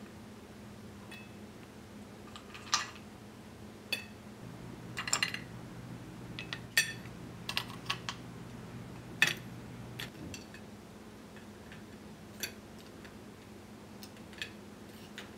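Ice clinking against glass as metal tongs lift ice sticks from a glass ice bucket and set them into a martini glass: a dozen or so scattered sharp clinks and clicks. A low steady hum underneath stops about ten seconds in.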